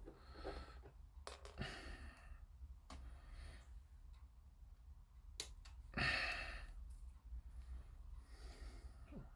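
A man's breathing and sighing close to the microphone, the strongest sigh about six seconds in, with a few light clicks, over a low steady hum.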